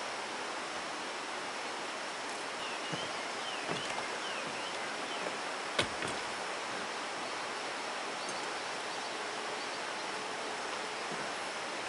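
Steady outdoor ambience on a mountainside, with a run of short bird chirps from about three to five seconds in and a single sharp knock near the middle.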